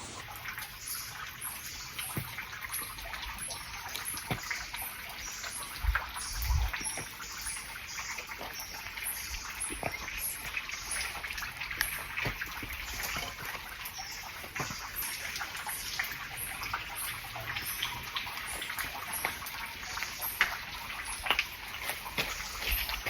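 Stream water trickling and splashing over rocks, a steady rush with many small clicks and splashes, and a couple of low thumps about six seconds in.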